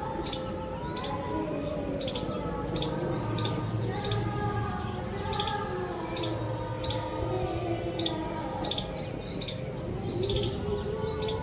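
A chorus of many birds chirping, a steady run of short, sharp chirps layered over lower wavering calls.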